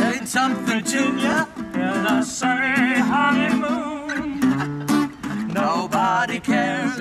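Two acoustic guitars strummed together under a man's singing voice, with a wavering vibrato on the held notes.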